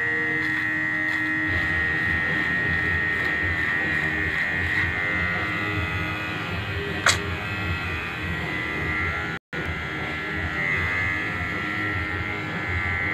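Electric hair clipper buzzing steadily while running, with one sharp click about seven seconds in and a momentary break in the sound a couple of seconds later.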